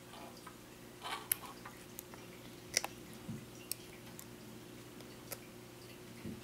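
Small, sharp clicks and snips from hand wire strippers stripping insulation off thin drone motor wires, about half a dozen spread irregularly, the loudest about three seconds in. A faint steady low hum runs underneath.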